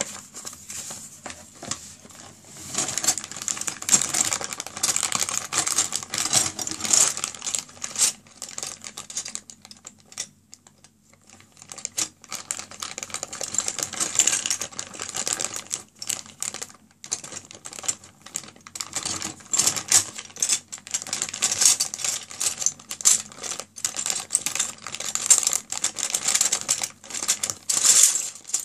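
Clear plastic bag of hard plastic crystal-puzzle pieces being handled: the bag crinkles and the pieces clatter and click against each other in rapid runs, with a few brief pauses.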